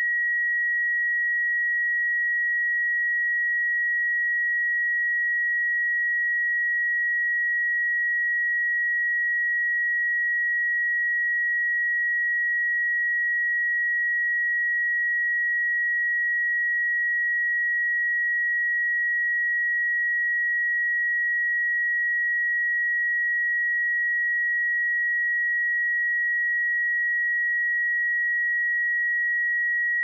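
Pure 1908 Hz sine-wave test tone, one steady high-pitched note at constant level with no harmonics.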